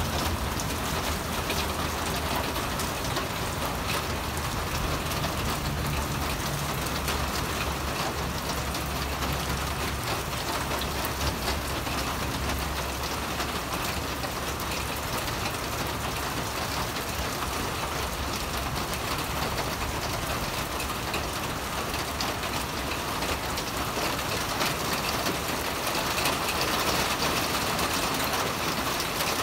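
Steady rain falling, with a low rumble underneath that fades out about halfway through.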